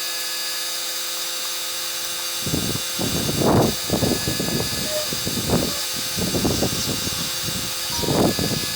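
Electric bench chainsaw-chain sharpener running with a steady motor hum and whine. From about two and a half seconds in, irregular low rumbling pulses come roughly every half second.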